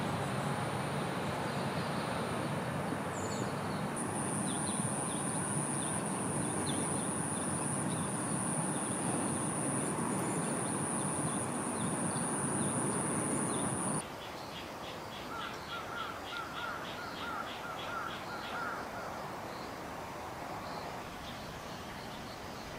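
Outdoor field ambience: a steady rushing background with a thin, steady high-pitched tone through the first half. About fourteen seconds in the background drops abruptly to a quieter hush, and a bird gives a rapid run of short repeated calls for a few seconds.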